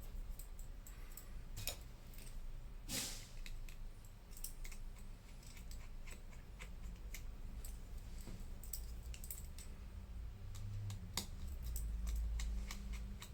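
Small repair tools clicking and tapping on an iPhone 8's internal parts as screws and the display are taken out, with scattered sharp clicks and one short scrape about three seconds in.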